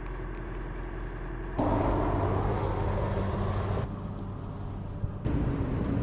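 Car driving: steady engine and road noise, which jumps abruptly louder about a second and a half in, drops back near the middle and rises again near the end.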